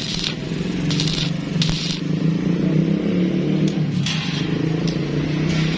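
Arc welding on thin angle steel: short bursts of crackling arc, several in a row, over a steady machine hum.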